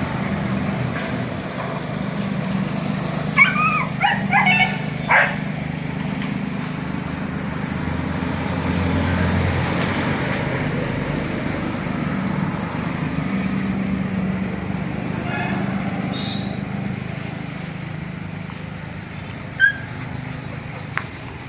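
Steady low hum of a running engine, with a dog barking several times about three to five seconds in and again briefly near the end.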